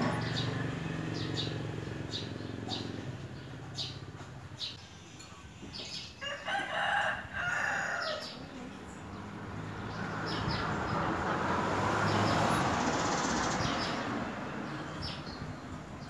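Small birds chirping, with short high calls repeating throughout and a louder, longer burst of calls about six seconds in; a rushing noise swells and fades between about ten and fourteen seconds.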